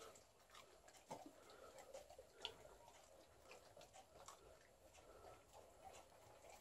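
Faint, scattered small clicks and smacks of an Alaskan Malamute licking and chewing strands of spaghetti off the floor and plate.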